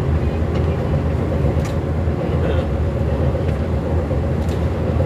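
Diesel engine of an MAN railbus running steadily under the rumble of the moving railcar, with a few short clicks.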